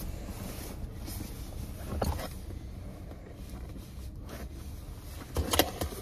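Seat belt latch plate and buckle clicking and rattling as a child fumbles to fasten the belt, with a cluster of sharp clicks near the end. Under it runs a steady low hum inside the car.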